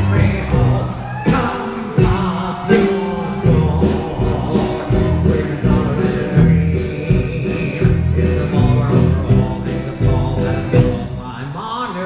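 Loud music with a singing voice over a steady, heavy bass beat.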